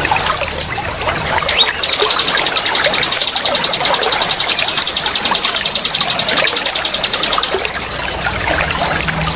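Forest chorus of many small wild birds chirping over a trickling water background, with a rapid, high-pitched pulsing trill from about two seconds in until near the end.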